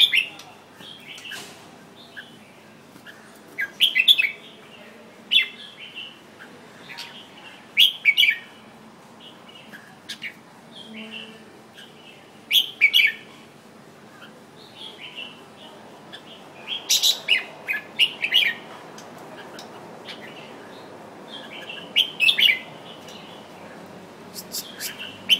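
Red-whiskered bulbul singing short, bright phrases of a few quick notes, repeated every two or three seconds with pauses between.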